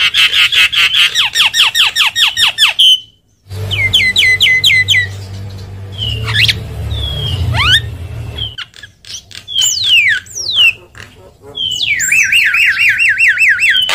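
Javan myna (jalak kebo) singing. It opens with a fast run of repeated down-slurred whistles, about eight a second, which stops about three seconds in. After a short pause come varied whistles and rising and falling glides over a low hum, and near the end another rapid run of downward-sweeping notes.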